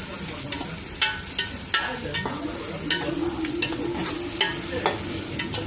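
Metal slotted spoon stirring and scraping thick masala in an aluminium pot, with sharp, irregular clinks of the spoon against the pot over the low sizzle of the frying masala.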